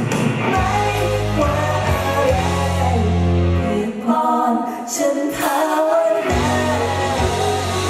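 Live Thai pop band performance: a male lead vocalist sings a melody over electric guitar and low sustained accompaniment. The low part drops out for about two seconds midway, leaving the voice more exposed, then comes back.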